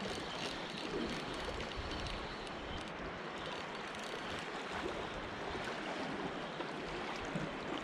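Sea water washing and lapping steadily among the concrete tetrapods of a breakwater.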